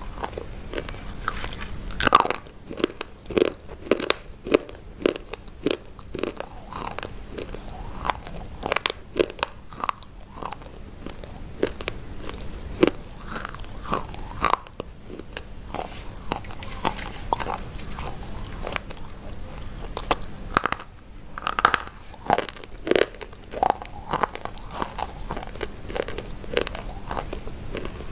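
Hard white chalk-like sticks being bitten and chewed close to a microphone: repeated sharp, crisp cracks as pieces snap off, with grinding crunches between bites.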